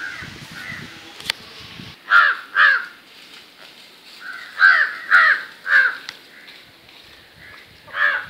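A crow cawing in short harsh calls: two about two seconds in, three more around five seconds, and another near the end.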